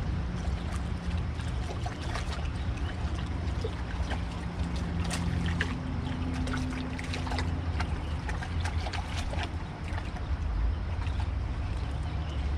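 Steady rush of river water around concrete blocks over a low rumble, with a run of small splashes and clicks through the middle of the stretch as a hooked fish is brought to the surface at the water's edge.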